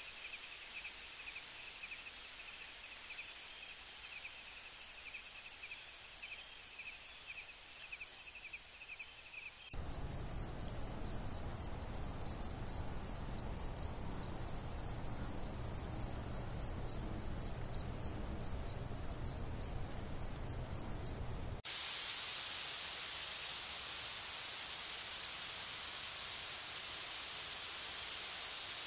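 Night insects such as crickets trilling, in three stretches that change abruptly. First a faint, high, finely pulsing chirr; from about ten seconds in a louder, lower, pulsing trill over a low rumble; from about twenty-two seconds in mostly a steady high hiss with faint ticks.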